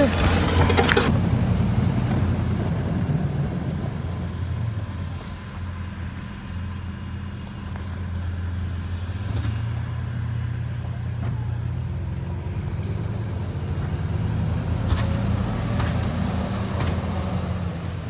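Pickup truck engine running while driving, a steady low drone whose pitch drops and rises a few times as it changes speed.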